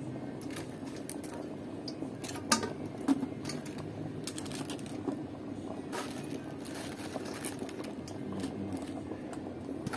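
A few light knocks and clicks as vegetables are set into an aluminium steamer tray, the sharpest two about two and a half and three seconds in, over a steady low background hum.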